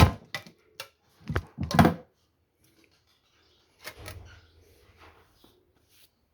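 A string of sharp metallic knocks and clinks, the loudest in the first two seconds, then a softer clatter about four seconds in and a few light ticks: tools and metal parts being handled on a motorcycle engine.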